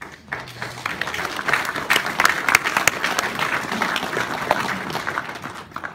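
Audience applauding, swelling over the first two seconds and dying away near the end.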